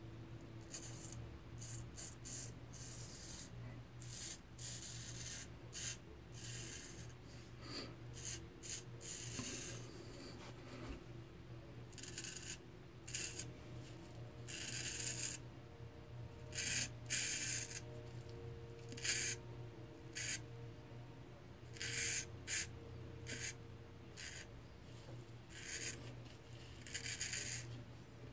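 J.A. Henckels straight razor scraping stubble through shaving lather in a long run of short, high-pitched scraping strokes. Each stroke lasts under a second, with short irregular pauses between them.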